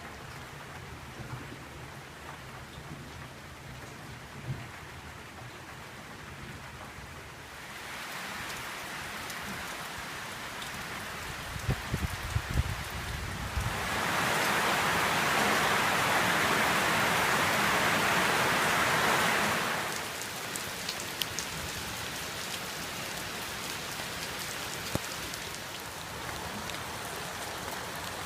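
Tropical-storm rain falling steadily, with a low rumble under it for the first several seconds. The rain grows heavier about a third of the way in, pours much louder for about five seconds past the midpoint, then eases back to a steady fall.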